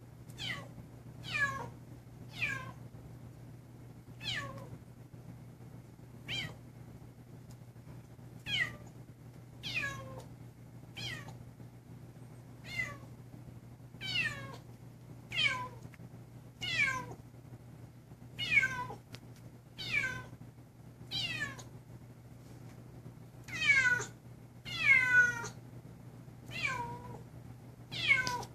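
Chocolate point Siamese kitten meowing over and over, short high calls that fall in pitch, about one every second and a half. The calls grow louder and longer near the end. A steady low hum runs underneath.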